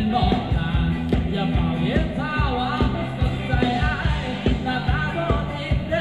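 Amplified dance music from a live band, with a strong steady beat and a singing voice.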